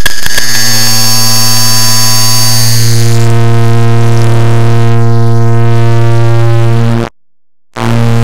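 Clock-ticking recording sped up so far that the ticks merge into a loud, harsh buzzing drone with a steady low pitch and many overtones. It cuts out for about half a second near the end, then resumes.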